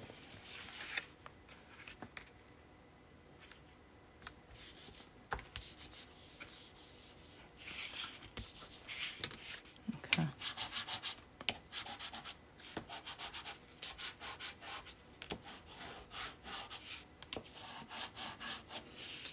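Bone folder rubbing along the creases of a cardstock card, a scratchy papery scraping in quick back-and-forth strokes. It is sparse at first and becomes steady and busier about halfway through.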